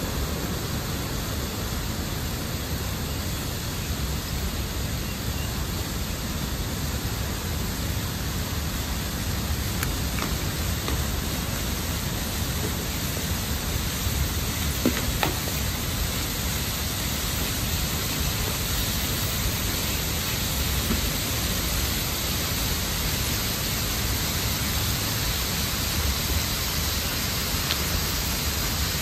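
Water rushing steadily through an open dam gate, a continuous full-range rush with a heavy low end, with a faint brief knock about halfway through.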